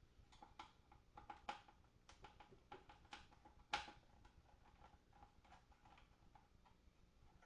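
Faint, irregular light clicks and taps from small parts and hand tools being handled while an amplifier is taken apart, with one sharper click about four seconds in.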